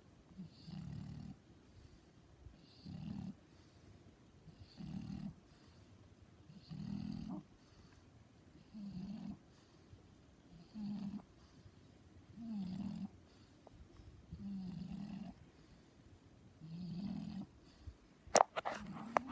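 French bulldog snoring in its sleep: nine deep, even snores, about one every two seconds. A few sharp clicks or knocks come near the end.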